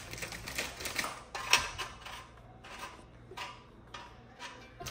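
Dry square biscuits being set down one by one in a granite-coated baking tray: a run of light clicks and taps, the loudest about one and a half seconds in, growing sparser later.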